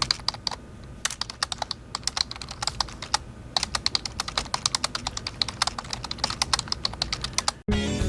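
Typing on a computer keyboard: quick runs of key clicks with short pauses between them, stopping suddenly near the end.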